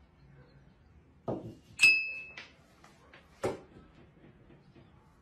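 Things being handled on a table: a dull knock, then a sharp ringing clink of crockery, a light click, and another dull knock about two seconds later.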